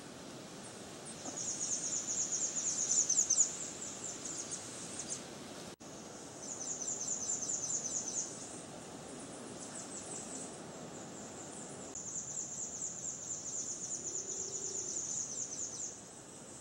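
Insects trilling in high, rapid pulsing bursts of two to four seconds each, three in all, over a steady outdoor background hiss.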